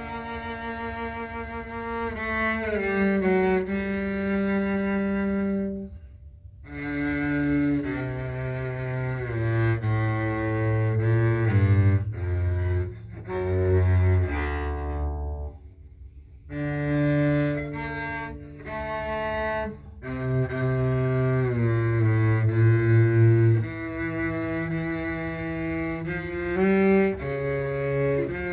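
Double bass played with the bow: a slow, melodic passage of sustained notes in the instrument's upper-middle register, in phrases separated by brief breaks.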